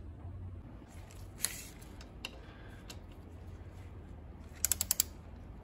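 A hand ratchet clicking as it turns a belt-tensioner mounting bolt. There are a couple of single clicks, then a quick run of about five clicks near the end.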